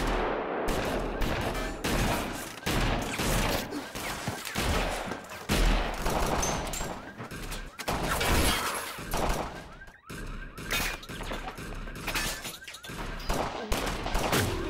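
Movie gunfight sound: many gunshots in quick succession with impacts, thinning to a short lull about ten seconds in before the firing picks up again.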